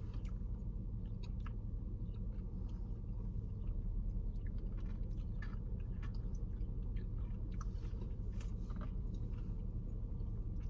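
A person chewing a spoonful of Blizzard ice cream with cookie pieces in it, with small irregular wet mouth clicks. A steady low hum runs underneath.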